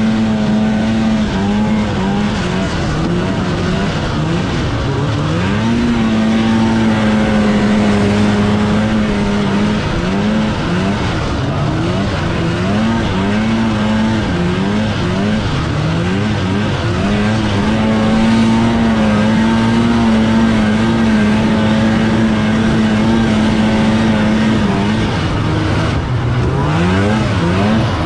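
1980s two-stroke snowmobile engine running under way, its revs rising and falling as the throttle is worked. It holds steady for a few seconds from about six seconds in, and again for several seconds from about eighteen seconds in.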